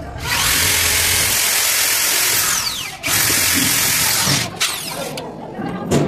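Electric drill run in two bursts at a door closer's mounting bracket on a wooden door frame, the first about two and a half seconds with its pitch dropping near the end, the second just over a second. A few short clicks and knocks follow.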